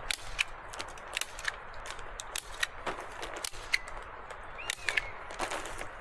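A run of irregular sharp clicks and snaps, about fifteen in six seconds, over a steady hiss.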